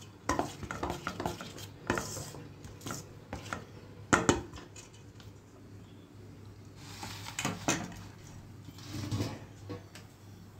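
A steel spoon stirring thick batter in a stainless-steel bowl, knocking and clinking against the metal sides at irregular moments, with the loudest knock about four seconds in.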